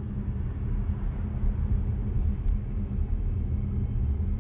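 Steady road and tyre rumble inside the cabin of a BYD Seal electric sedan on the move, with a steady low hum and no engine sound.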